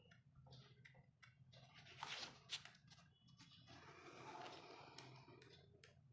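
Faint handling noise from a manga book: light clicks and a stretch of rustling about two seconds in, then again from about three and a half to five seconds.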